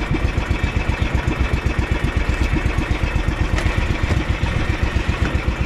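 Small engine of an outrigger boat running steadily, a rapid, even chugging, with wind and water noise over it.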